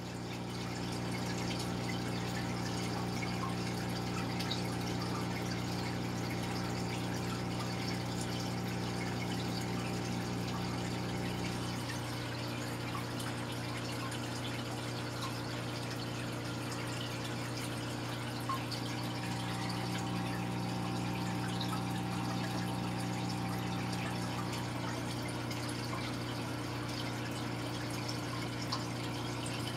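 Aquarium pump running with a steady low hum over the hiss and trickle of moving, bubbling tank water. One of the hum's tones fades out and comes back partway through.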